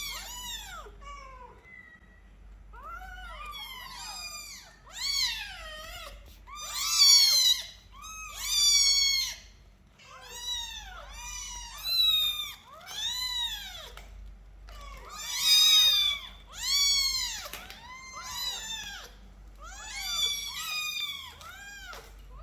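Young kittens meowing over and over, high-pitched calls that rise and fall, several of them overlapping at times.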